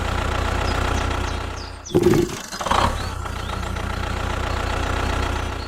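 A heavy machine's engine running steadily. About two seconds in, the sound briefly dips and there is a short, louder burst, and then the running continues.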